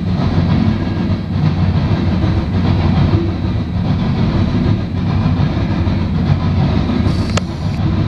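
Norfolk Southern coal train's steel hopper cars rolling past, a steady, loud rumble of wheels on the rails.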